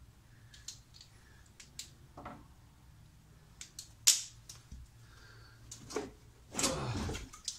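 Scattered plastic clicks and knocks as the washer fluid tank of a 1983 Porsche 911SC and its hose and wiring fittings are worked loose by hand, with one loud sharp snap about four seconds in and a longer rush of noise near the end.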